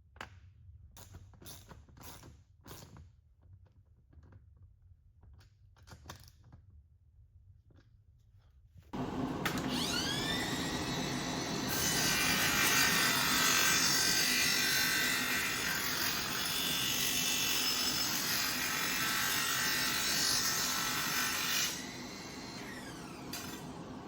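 A few light clicks and knocks of handling, then a power tool spins up about nine seconds in. It runs loud and shrill for about twelve seconds, then cuts back and winds down near the end.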